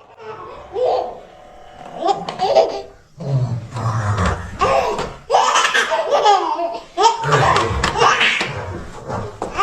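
A baby laughing heartily in repeated bursts while an older child plays with her, with the child's own voice mixed in.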